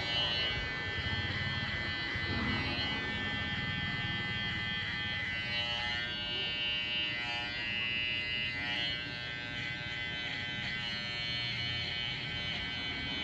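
Electric hair clippers buzzing steadily through a buzz cut, with background music.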